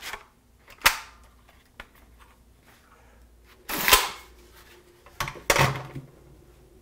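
Mechanical handling of a peel-apart film holder while a sheet of New55 film is processed: a sharp click about a second in, a short scraping rasp about four seconds in, and a few more knocks and scrapes a second or so later.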